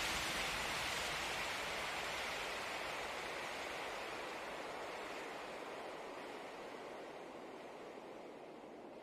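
A steady rushing noise with no tones, fading out slowly.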